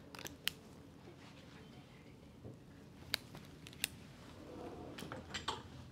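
Clothes hangers clicking against a clothes rack as garments are taken down and hung back: a few sharp, separate clicks, with faint rustling of fabric a little after four seconds in.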